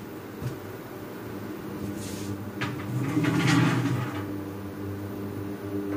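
Induction cooktop humming steadily as it heats oil in a frying pan. A couple of short clicks and a brief knocking, rattling noise come about three seconds in.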